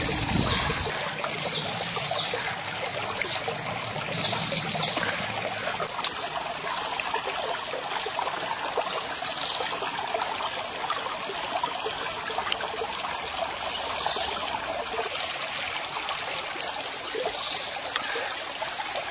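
A stream trickling steadily, with a few short high chirps now and then.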